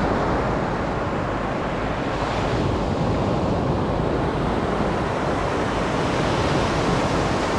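Small sea waves breaking and washing up a sandy, pebbly beach: a steady rush of surf.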